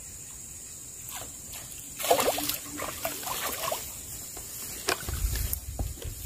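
Water splashing at the canal surface for about two seconds, then a sharp click and a brief low rumble near the end.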